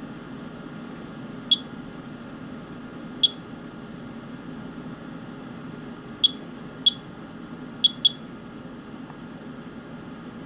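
Monitor 4 Geiger counter beeping once for each detected count: six short, high beeps at irregular intervals, two of them close together near the end, over a steady low hum. The counter is registering radiation from a rain sample.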